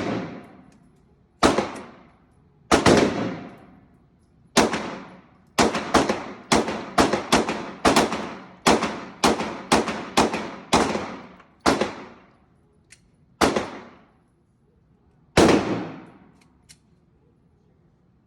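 Gunshots, about eighteen in all, each with a ringing tail. A few single shots come first, then a quick string of about a dozen at roughly two shots a second, then a few slower single shots.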